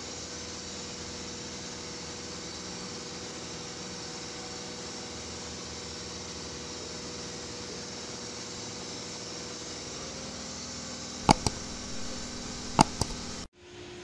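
Steady background hiss with a faint hum, then near the end two pairs of sharp knocks about a second and a half apart as the greased front hub parts are handled.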